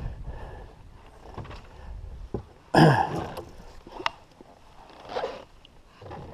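Water splashing and sloshing against the side of a fishing boat as a hooked striped bass is pulled to the hull and lifted by hand, with scattered handling knocks and a sudden loud noise about three seconds in.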